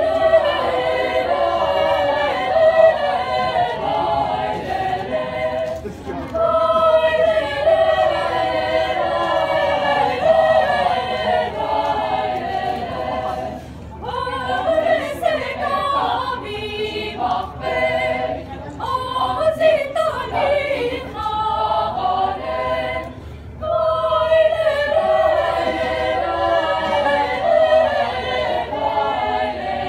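Youth choir of mostly girls' voices singing a cappella, in phrases with short pauses between them.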